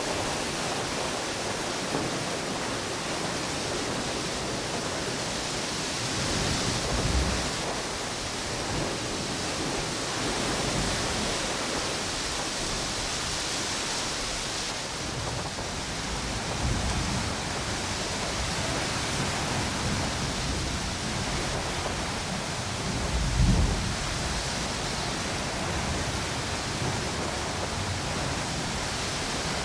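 Steady wind and ocean waves washing on a beach, a continuous hiss, with three brief low rumbles, the loudest about three quarters of the way through.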